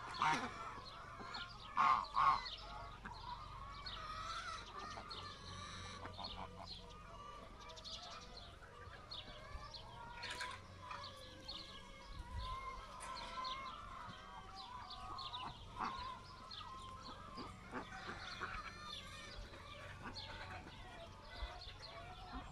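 Farmyard poultry calling: hens clucking and geese honking, with loud calls in the first couple of seconds, then steady mixed chatter.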